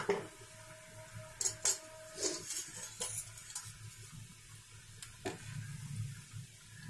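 Samosas deep-frying in hot oil in a steel kadhai with a soft sizzle. A metal slotted spoon clinks and scrapes against the pan several times.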